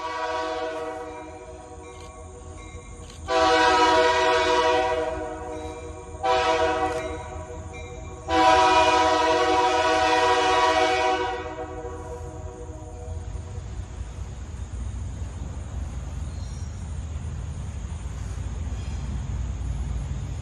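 MLW RS-18U diesel locomotive's air horn sounding four blasts, the last three long, short, long, in the pattern of the grade-crossing signal. After the horn stops, the locomotive's diesel engine rumbles low and grows louder as it approaches.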